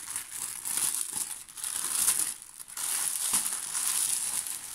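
Clear plastic bag of diamond-painting drill sachets crinkling noisily as it is handled, in irregular waves with a brief lull about halfway through.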